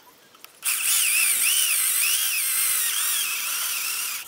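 Electric drill driving an 8 mm Bosch HSS PointTeQ bit through steel plate, with a high whine that wavers up and down in pitch as the bit cuts. It starts about half a second in and stops sharply near the end.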